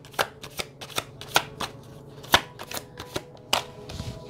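A deck of tarot cards being shuffled by hand: a string of sharp, irregular card slaps, about three a second.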